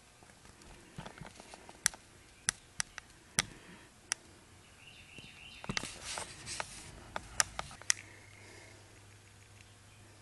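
A scatter of sharp clicks and light taps over a quiet background, with a low steady hum starting near the end.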